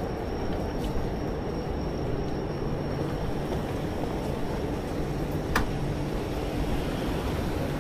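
City street ambience: a steady low rumble of urban noise, with a single sharp click about five and a half seconds in.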